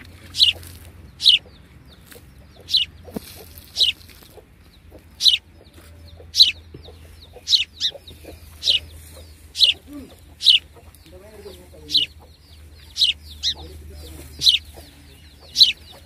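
Domestic chicken chicks peeping: loud, high-pitched peeps, each dropping quickly in pitch, about one a second and at a fairly even pace.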